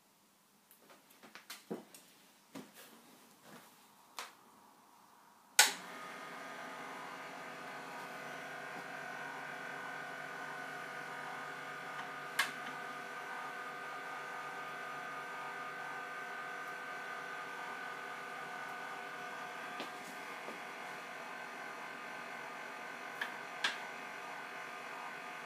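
Small electric motor, most likely the Van de Graaff generator's belt drive, switched on with a sharp click about five seconds in and then running with a steady hum; a few sharp clicks sound over it. Before it starts there are only faint light clicks of handling.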